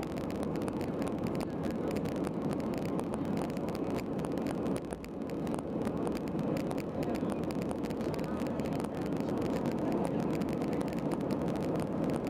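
Steady roar of an Airbus A320's engines and rushing air heard inside the passenger cabin during the climb just after takeoff, with a brief dip about five seconds in.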